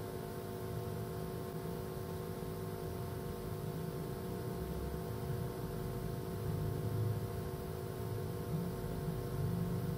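Steady background hum made of several held tones over a low, wavering rumble that swells slightly about seven seconds in and again near the end. No distinct clicks or snaps can be picked out from it.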